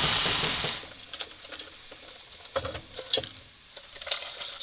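Snow shovelled onto a hot wood stove and its pot hissing and sizzling as it melts, dying away about a second in. Scattered faint clicks and ticks follow.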